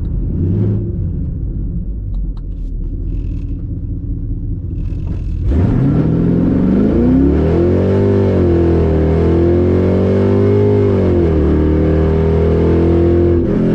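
Chevrolet Camaro's V8 engine running with a low steady rumble, then about five seconds in it revs up sharply under hard acceleration, its pitch climbing and wavering, before dropping back and settling into a steady drone near the end.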